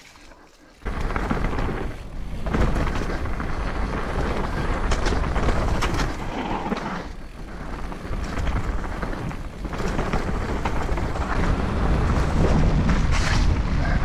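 Mountain bike riding down a muddy downhill trail: steady rushing noise of wind on the on-board camera's microphone and of the tyres on the ground, with short knocks and rattles from the bike over roots and bumps. It starts suddenly about a second in.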